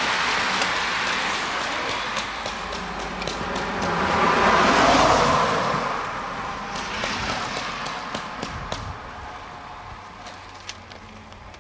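A car driving past: a rushing noise that swells to its loudest about five seconds in and then fades away, with scattered sharp clicks.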